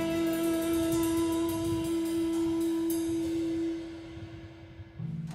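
A live band's final chord held and ringing, with cymbals struck rapidly over it. It fades away about four seconds in, then a brief low note sounds near the end and cuts off.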